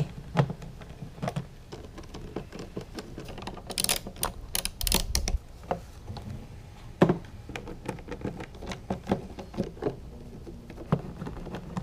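Scattered clicks, taps and knocks of plastic and metal parts being handled as the HID ballast is worked off the back of a headlight housing, with a short rasping stretch about four seconds in.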